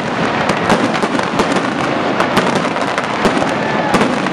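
Aerial fireworks bursting: a rapid, irregular run of sharp bangs, several a second, over continuous crackling.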